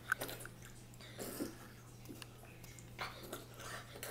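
A boy lapping water from a glass bowl with his tongue like a dog: quiet, irregular slurps and small splashes.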